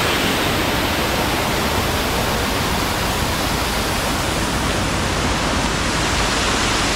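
Mountain waterfall, water rushing steadily and loudly.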